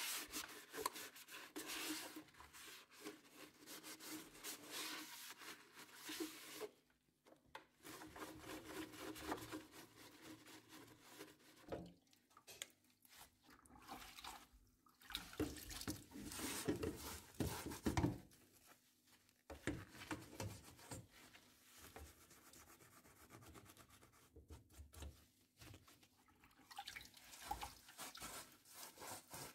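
Rubbing and scrubbing in irregular strokes with short pauses: a cloth wiped inside an air fryer's housing, then a dish sponge scrubbing the wet nonstick air fryer basket and mesh crisper plate.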